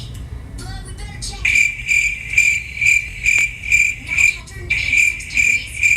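A cricket chirping in an even rhythm of about two chirps a second, the chirps pausing briefly near the start.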